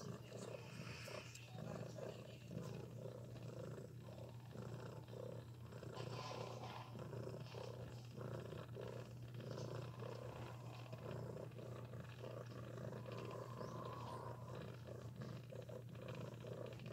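Nursing mother cat purring steadily, with even, repeating pulses as she purrs.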